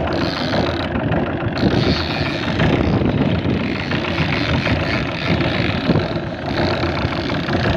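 Fishing boat's engine running steadily under way while trolling, with wind buffeting the microphone.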